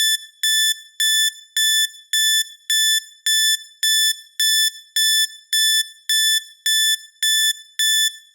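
Electronic timer alarm beeping as the countdown reaches zero: a steady run of identical high-pitched beeps, a little under two a second, each short with a brief fading tail.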